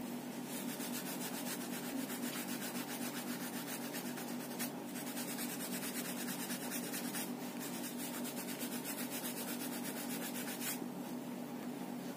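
Oil pastel rubbed quickly back and forth over paper: a fast, scratchy rubbing with two brief breaks, stopping shortly before the end.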